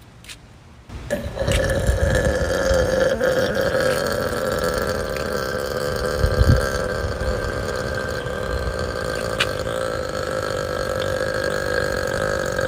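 A woman's long, drawn-out burp that starts about a second in and holds a steady pitch for roughly eleven seconds before cutting off suddenly.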